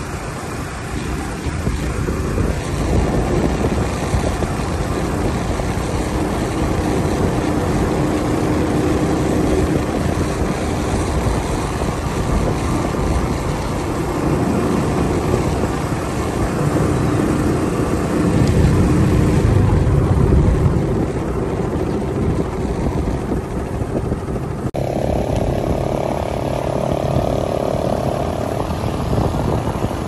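Small motor vehicle running along a road, its engine hum mixed with a steady rush of wind over the microphone. The sound shifts abruptly about 25 s in, with a new steady hum.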